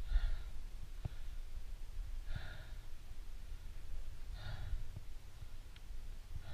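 A rock climber's heavy breathing right at a helmet-mounted microphone, a breath about every two seconds as he works up to the anchor, over a low rumble on the mic and a couple of faint clicks.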